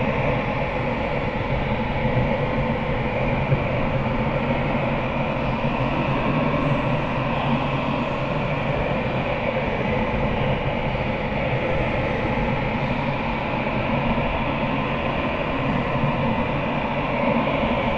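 A steady, unchanging mechanical rumble with a constant hum running through it.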